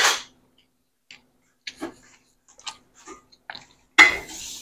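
Scattered light clicks and knocks, with a sharper, louder clatter about four seconds in.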